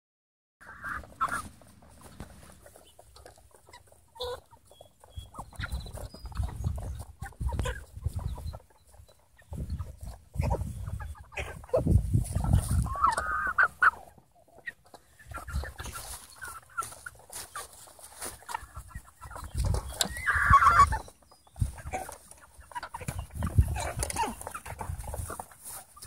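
Cornish Cross meat chickens calling as they feed, with a few louder calls near the start, about halfway through and again a little later, over repeated bursts of low rumble.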